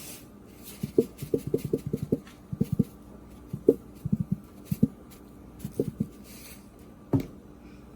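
Short dull taps and knocks from seasoning raw chicken pieces in a pan: a quick run of them about a second in, then scattered single taps, with a last louder one near the end.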